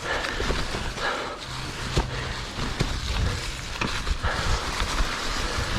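Cannondale Trail 7 hardtail mountain bike being ridden along an overgrown woodland trail: a steady rush of tyre and trail noise with several sharp knocks and rattles from the bike.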